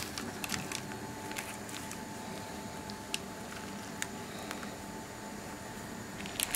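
Faint, scattered crackles and clicks of baking paper and baked bread crust as a pide is torn apart and lifted by hand, over a steady low background hiss.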